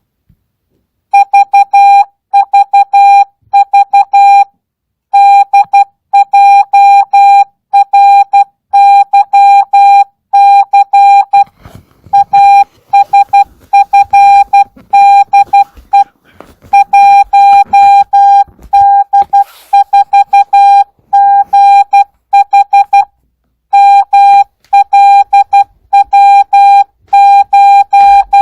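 Morse code (CW) practice: a single-pitched beep keyed on and off in dots and dashes, starting about a second in, sent at 12 words per minute without Farnsworth spacing.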